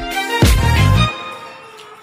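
Background music: a hip-hop-style song with a heavy bass beat that cuts off abruptly about a second in, leaving faint room noise.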